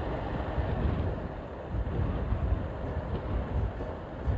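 Wind buffeting the microphone of a moving motorbike as it rides along the road: a gusty low rush, with engine and road noise underneath.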